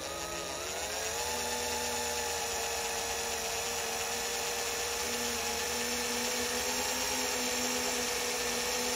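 Power drill spinning up and drilling steadily with a small bit down the centre of an aluminium AN470 rivet, hollowing it so the rivet will collapse and pull out of the hole more easily. The motor's whine rises in pitch over the first second, then holds steady.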